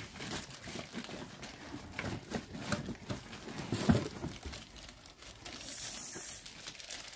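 Packaging crinkling and rustling as it is handled and opened, with scattered light knocks and a brief tearing hiss near the end.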